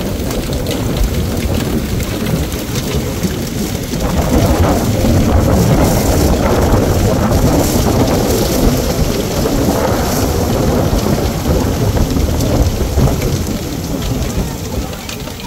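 Heavy rain pouring down, with a deep rumble of thunder that swells about four seconds in and fades near the end.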